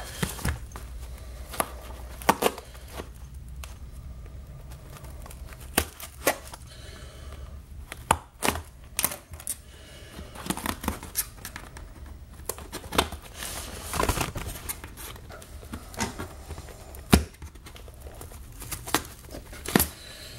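Scissors cutting and tearing the packing tape on a cardboard shipping box: irregular sharp snips and rips scattered throughout.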